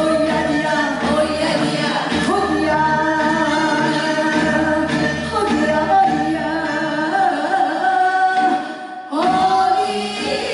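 Gyeonggi minyo, Korean folk song, sung by female voices in long held notes with wavering pitch. There is a brief break about nine seconds in, and then the singing resumes.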